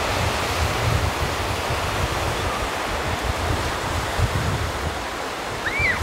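Surf washing onto a sandy beach as a steady roar of breaking waves, with wind buffeting the microphone in irregular low thumps.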